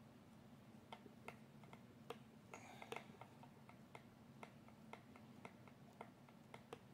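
Faint, irregular clicks of a hand hex driver turning a small screw, about one or two a second, over a low steady hum.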